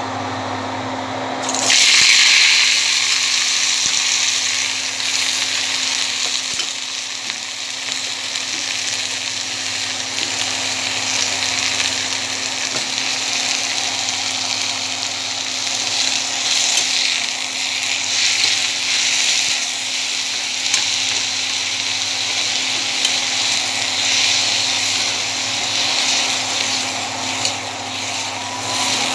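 Hot oil sizzling and frying in a wok, first with whole spices and then with chopped leafy greens being stirred. The sizzle jumps up sharply about one and a half seconds in as something goes into the oil, then keeps on steadily with the stirring.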